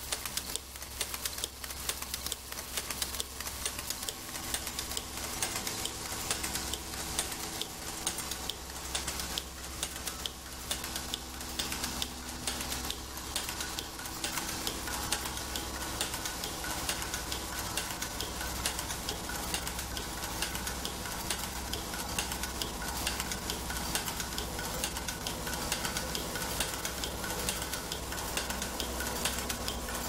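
Automatic nylon zipper slider mounting machine running: rapid, steady mechanical clicking and clatter over a low hum.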